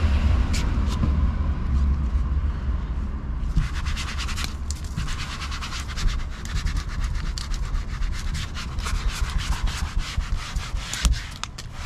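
A rag wiping the underside of a Tesla Model Y's front body with isopropyl alcohol to strip off grease and dust, in quick back-and-forth rubbing strokes that start in earnest about three seconds in. A steady low rumble runs underneath.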